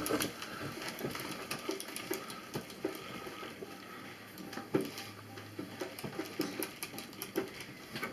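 Irregular light clicks and taps of a screwdriver and screws against the metal computer case while a motherboard is being screwed down, with one sharper knock about five seconds in.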